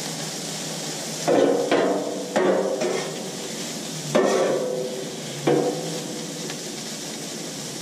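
Metal spatula clanking against a steel griddle five times, each strike ringing briefly, over the steady sizzle of potatoes and sausage frying.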